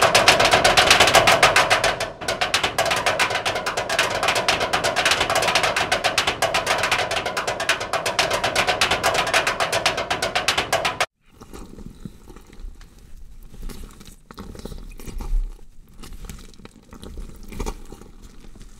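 Loud, fast, even rattle of rapid percussive hits over a steady tone, cutting off abruptly about eleven seconds in. Afterwards there are only faint scattered rustles and a few soft low thumps.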